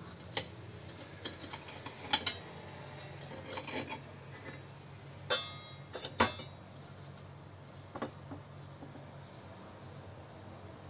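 Scattered clinks and knocks of a knife and plate as a burrito is cut in half and the halves are moved about on the plate, with two louder sharp clinks about five and six seconds in, over a faint low hum.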